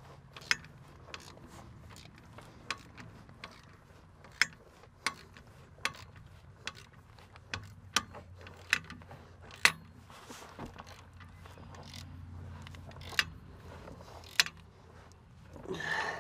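Hand ratchet wrench clicking as it tightens the clamp band of an air brake chamber: single sharp clicks at uneven spacing, about half a second to a second apart. A short louder noise comes near the end.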